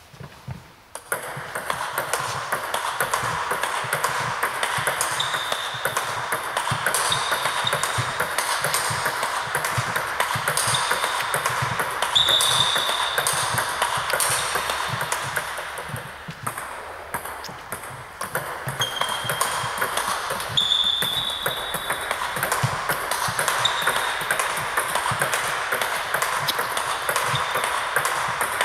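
Table tennis multiball drill: balls being fed and struck in quick succession, a dense, rapid clicking of bats on balls and balls bouncing on the table. It starts about a second in and dips briefly partway through. Short high-pitched squeaks come and go over the clicking.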